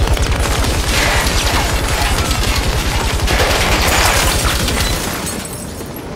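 Sustained automatic gunfire, a long rapid burst with bullets striking the metal of a train cab, easing off about five seconds in.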